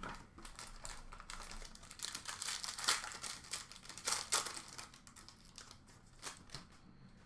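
Foil wrapper of a Topps Tier One baseball card pack crinkling as it is handled and opened by hand: a rapid crackle of small clicks that dies away after about five seconds.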